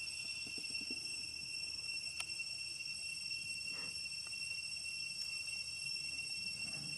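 Insects chirring in a steady, continuous high-pitched drone, with a few faint, soft short sounds close by.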